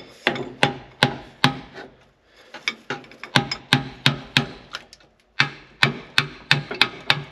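Hammer blows on metal, about three a second, in steady runs with two short pauses; each strike rings briefly.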